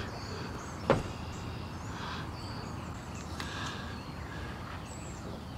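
Steady low outdoor background rumble with a single sharp click about a second in.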